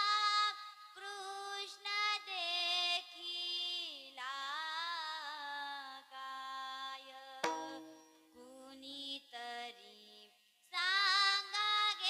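A girl's voice singing a slow, drawn-out devotional gaulan melody with harmonium accompaniment, the notes held long with gliding pitch. A single drum stroke sounds about seven seconds in.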